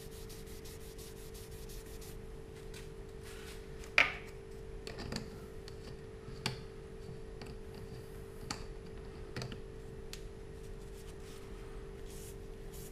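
A paper towel damp with rubbing alcohol wiping a sanded zebrano pen blank on the lathe, cleaning sawdust out of the grain: faint rubbing with scattered small clicks, the sharpest about four seconds in, over a steady hum.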